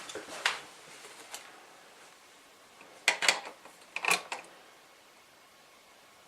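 Light clicks and taps of small plastic radio parts and a circuit board being handled and fitted together: a couple of single clicks in the first second and a half, then two short rattling clusters about three and four seconds in.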